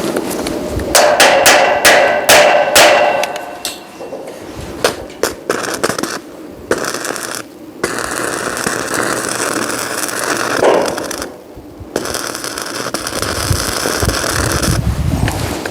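Metal knocks and clanks on a steel roof frame, the first few ringing, followed by scattered knocks and a steady hissing noise that breaks off abruptly a few times.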